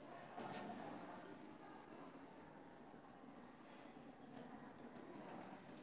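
Faint chalk writing on a blackboard: short scratches and taps of the chalk as a word is written out.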